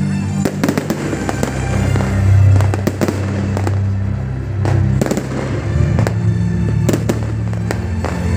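Aerial fireworks going off: repeated sharp bangs from bursting shells and crackling stars. Music with low held notes plays underneath.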